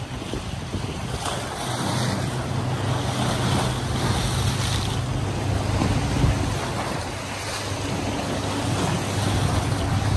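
Sea waves washing against a rocky shoreline, with wind rumbling on the microphone, steady throughout.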